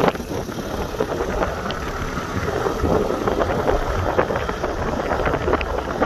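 Motor scooter riding along a road: steady engine and road noise mixed with wind buffeting on the microphone, with a thump at the very start.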